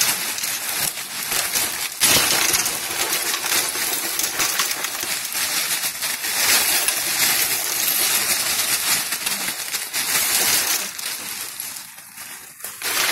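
Crushed ice being poured and dropped into a stainless steel stockpot onto a plastic bag: a dense clatter and crackle of ice pieces that starts abruptly about two seconds in, goes on for several seconds and dies down near the end.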